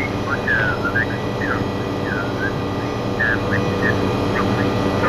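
Steady in-cabin noise of an MD500E helicopter in cruise: its Rolls-Royce 250-C20B turbine and rotor, a constant drone with a mix of whines over it. Short, faint high warbles come and go on top.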